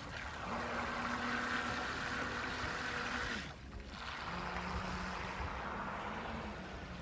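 Brushless direct-drive motor of a Tiger Mini PRO fishing bait boat running on the water: a steady low hum that shifts lower about halfway, over an even hiss.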